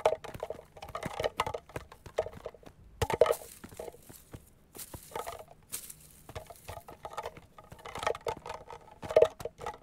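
Footsteps in sandals and shoes scuffing on a gravelly dirt path, mixed with a small can clattering and clinking each time it is kicked along the ground.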